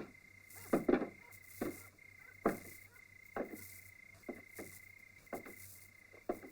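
Scattered sharp knocks and clicks at irregular intervals, about one a second, over a faint steady high-pitched whine.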